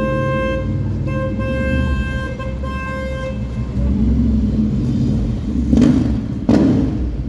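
A car horn held in long blasts on one steady tone, breaking off briefly twice and stopping about three and a half seconds in, over the low rumble of slow rush-hour traffic. Near the end come a couple of short, louder rushing noises.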